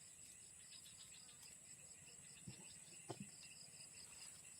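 Faint insect chorus: a steady high-pitched hum with rapid pulsed chirping over it, and two soft taps around the middle.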